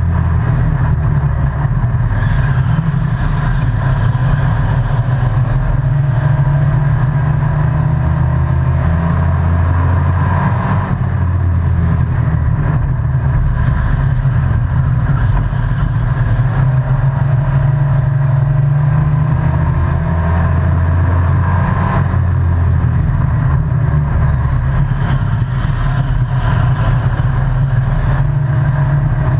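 Race truck's engine running hard at racing speed, heard from inside the cockpit. It is loud and steady, its note shifting about every eleven seconds.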